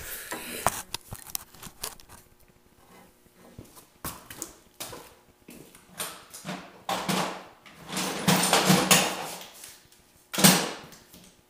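Handling noise from work at an engine on a stand: bumps as the camera is set down at the start, then scattered clicks, rustling and clatter of tools being picked up and moved, with a louder knock near the end.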